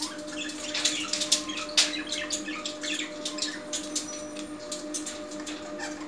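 Alexandrine parakeets scuffling on a wire cage top: irregular clicks and scrapes of claws and beaks on the metal mesh and a plastic bottle cap, with bursts of wing flutter, busiest in the first two seconds.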